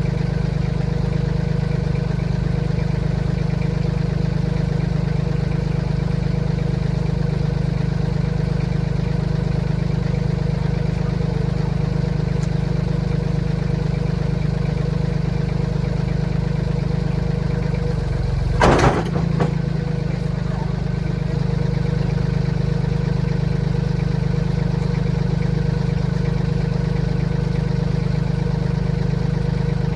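Tractor engine running steadily at an even speed while it lifts an engine, with one sharp metallic clank about two-thirds of the way through.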